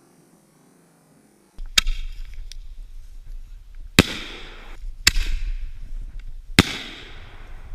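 Fireworks going off: four sharp bangs starting about a second and a half in, each followed by a fading crackling hiss.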